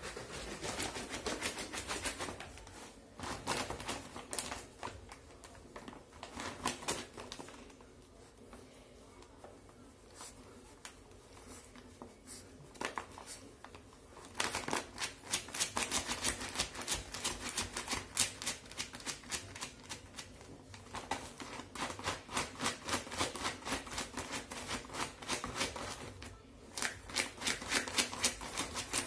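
Shopping bag crinkling and rustling in rapid crackly bursts as a Shih Tzu puppy rummages inside it, with a quieter lull partway through.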